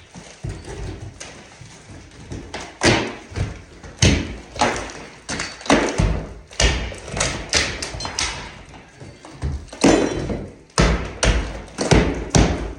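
Hammer blows knocking out plaster from a lath wall: repeated irregular thuds, a few a second, with crumbling debris after some of them.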